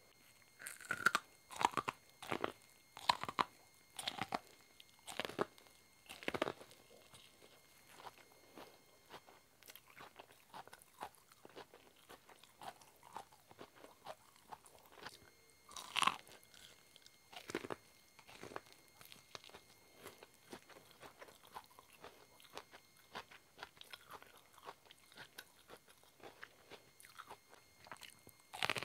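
Bites into a cob of yellow corn close to the microphone, the kernels crunching as they come off the cob, then chewing. A quick run of loud crunching bites comes in the first six seconds, then softer chewing with a loud bite about halfway through and another at the end.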